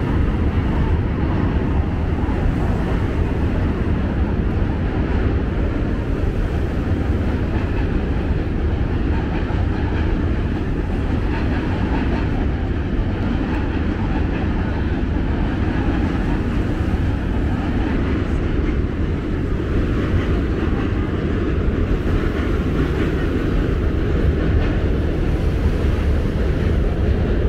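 Steady outdoor city ambience: a continuous low rumble with no distinct events standing out.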